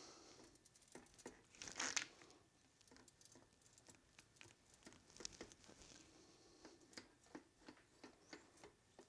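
Near silence with faint, scattered small clicks and rustles of hand work on a small piece of sheet metal. The loudest rustle comes about two seconds in.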